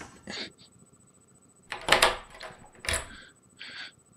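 Several short knocks and clatters with quiet gaps between them, the loudest about two seconds in.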